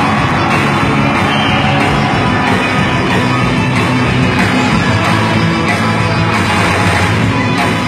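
Live rock band playing loud electric guitar-driven rock without a break.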